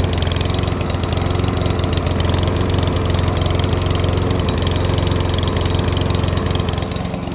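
Briggs & Stratton OHV single-cylinder engine on a Saber Edge walk-behind lawn mower running steadily at a constant speed. Near the end its note changes slightly and it gets a little quieter.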